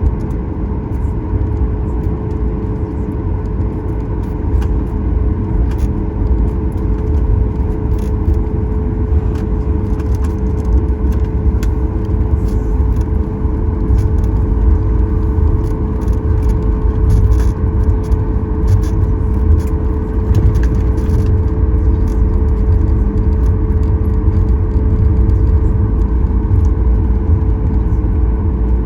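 Inside the cabin of a Boeing 737 MAX 9 taxiing on the ground: a steady low rumble and the steady hum of its idling CFM LEAP-1B engines, with scattered light rattles of cabin fittings.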